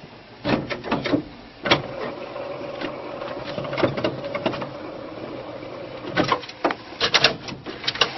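HP Designjet wide-format inkjet printer starting up: its carriage motor whines steadily through the middle while the mechanism clicks and clacks, with clusters of clicks about half a second in, around four seconds, and again between six and seven and a half seconds.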